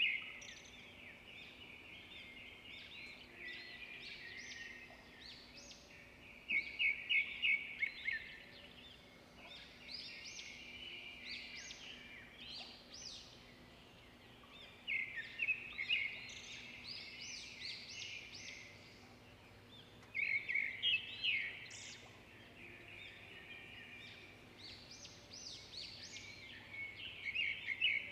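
Small birds chirping and twittering in quick runs of notes that come back every few seconds, over a faint steady hum.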